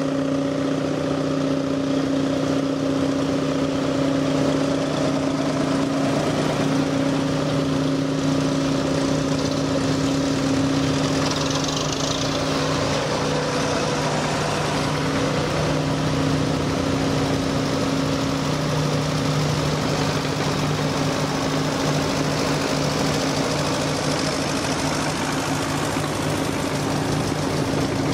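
Old tractor engines running steadily at low speed as a line of vintage tractors drives slowly past, with one engine close by holding an even, unchanging pitch.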